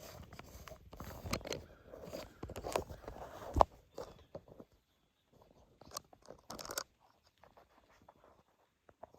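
Close crunching and rustling with many small clicks, and one sharp knock about three and a half seconds in. After about four seconds only a few scattered soft clicks remain.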